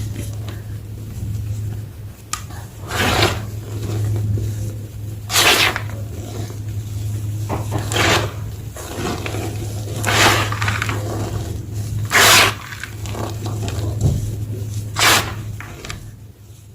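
Homemade gym chalk blocks crunching as they are crushed: about six loud crunches two to three seconds apart, with softer crumbling between, over a steady low hum.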